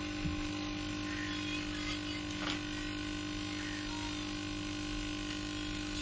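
A steady hum made of several fixed tones over a low, even noise, with a faint tap about two and a half seconds in.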